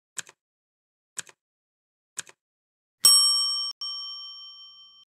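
Countdown timer sound effect: three short ticks a second apart, then a bright bell ding about three seconds in that rings on and fades away, marking time up.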